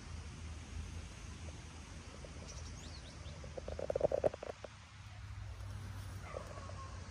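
Outdoor ambience: a few faint high bird chirps about two and a half seconds in, then a short rattling animal call about four seconds in, the loudest sound, with a weaker call near the end, over a steady low rumble.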